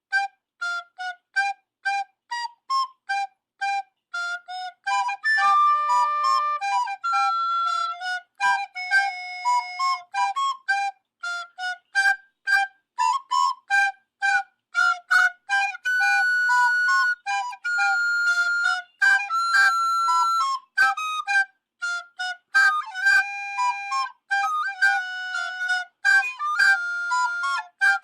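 Music: a solo melody on a flute-like wind instrument, mostly quick short notes with a few longer held ones.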